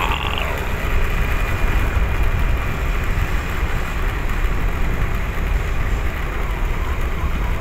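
A vehicle on the move along a road: a steady low rumble of engine and road noise with no change in pace.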